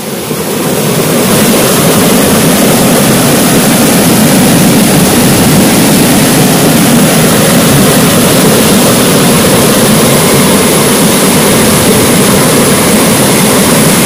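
Loud, steady rush of a waterfall cascading over rocks, swelling up over the first second and then holding even.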